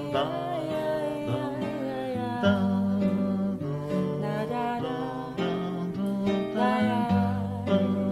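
Classical guitar plucked and strummed, with voices singing a wordless melodic line over it.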